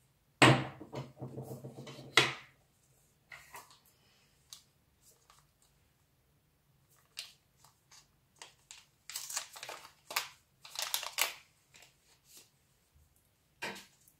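Hand-assembly handling sounds: a clatter and scrape of a screwdriver and the metal router case on the tabletop, ending in a sharp knock, then scattered clicks and a stretch of crinkling and scraping as a small part with a plastic film is handled over the circuit board.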